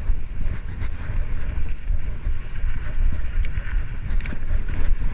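Wind buffeting the microphone of a camera on a moving bicycle: a heavy, unsteady low rumble, with a few faint ticks from the bike or road.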